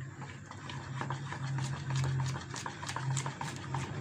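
A metal spoon beating thin gram-flour batter in a plastic bowl, clicking and scraping against the sides in a rapid run of light taps, about five a second.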